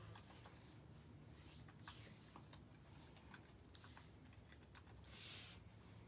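Near silence in a small room: faint scattered clicks and soft rustles, with a brief soft hiss about five seconds in.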